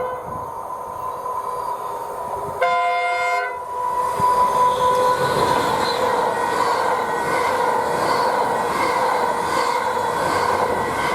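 Train horn sounding a steady chord, cut off about two and a half seconds in by a second, shorter horn blast. From about four seconds in a long horn blast sounds over the rushing noise of a passing train, with a regular beat underneath.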